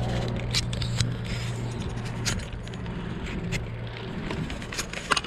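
Bicycle rolling over rough asphalt, with scattered clicks and rattles over a steady low hum that fades about halfway through.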